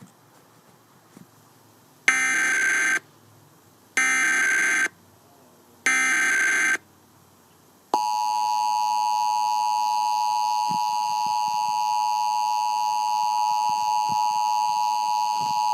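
Emergency Alert System monthly test on TV audio. About two seconds in come three one-second bursts of digital data: the SAME header that encodes the alert, with about a second between them. About eight seconds in the steady two-tone EAS attention signal begins.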